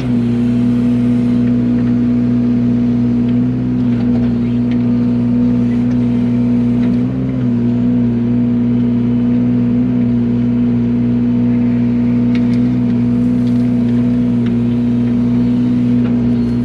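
Yanmar mini excavator's diesel engine running steadily at working speed, with a brief dip in pitch and level about seven seconds in.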